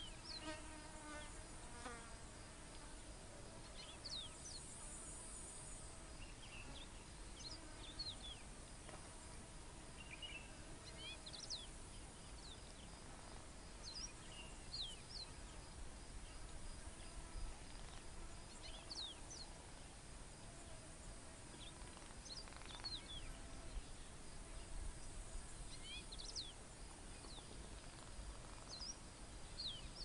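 Faint bush ambience: a steady insect buzz with short high chirps every second or two, and a brief call at the start.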